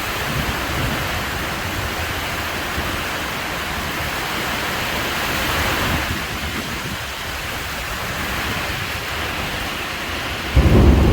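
Steady hiss of a heavy rainstorm with wind. Near the end a loud, low rumble of thunder suddenly breaks in.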